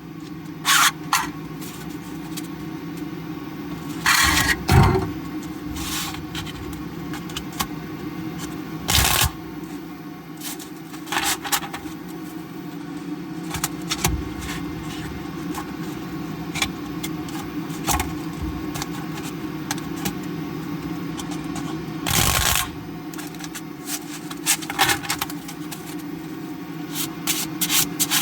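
Stiff 3D-printed plastic playing cards being shuffled and handled: short scraping, clattering bursts and scattered clicks, over a steady low hum.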